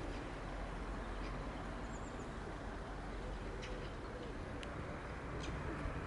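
Steady low outdoor background rumble with faint, brief chirps of small birds scattered through it.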